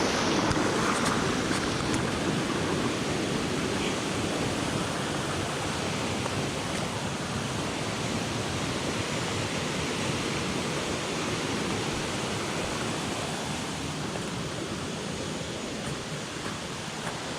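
Steady rush of water from a jungle waterfall and its cascading stream, slowly getting quieter.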